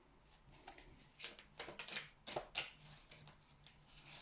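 A deck of oracle cards being shuffled by hand: a string of irregular, quick card slaps and flicks starting about a second in.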